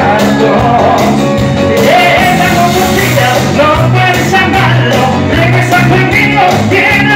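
Live Latin band playing, with a sung lead vocal over congas and drum kit and a steady beat.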